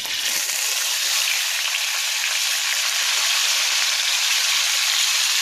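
Raw chicken pieces sizzling as they fry in hot oil in a heavy-bottomed stainless steel skillet on high heat, a steady hiss that grows a little louder a moment in as another piece goes into the pan.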